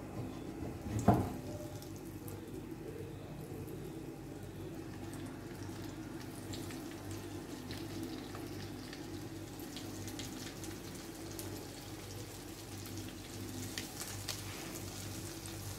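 Flour-coated chicken strips frying in hot oil over a low flame: a steady, fairly quiet sizzle with scattered small crackles. A thump about a second in as a strip goes into the pan.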